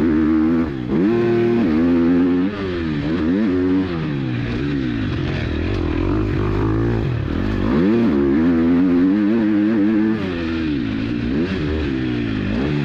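KTM 250 SX-F four-stroke single-cylinder motocross engine under load, its revs climbing and dropping again and again as the throttle is worked, with brief dips where it is shut off.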